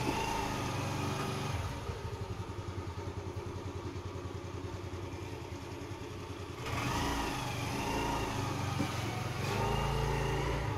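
An engine running with a rapid low throb; about two-thirds of the way through it grows louder and a wavering higher tone joins in.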